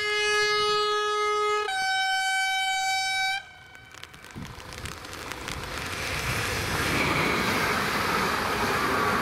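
Electric multiple unit train's two-tone horn: a long low note, then a higher note that cuts off sharply about three and a half seconds in. Then the train rolls over the crossing, its wheel-on-rail noise rising steadily toward the end.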